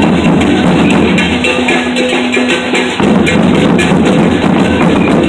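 Marching crowd with percussion: a cowbell and drums clanking and beating over the steady noise of the crowd, with a sustained low tone that comes and goes.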